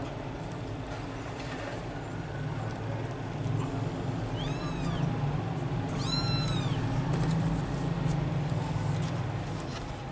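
A kitten meowing twice, high-pitched, arching calls about a second and a half apart, the second a little longer. A steady low hum runs underneath.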